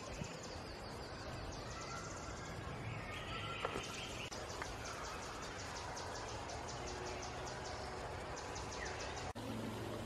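Outdoor natural ambience: a steady hiss with high, rapidly pulsed insect chirping at about four pulses a second and a few short bird calls. The sound drops out briefly near the end, then a low hum sets in.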